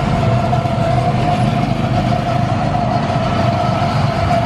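Go-kart engine running at a steady pitch while the kart drives around the track, heard from on board.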